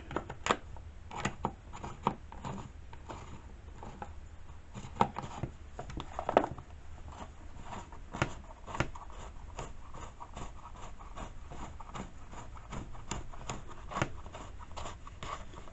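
Irregular clicks, taps and rubbing of plastic parts being handled and fitted on a chainsaw, as the air filter and its cover go back on; the saw is not running.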